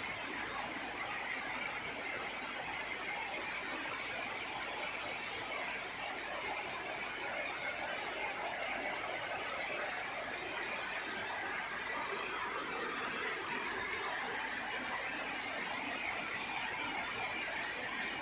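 Steady rain falling: a continuous, even hiss with faint scattered drop ticks.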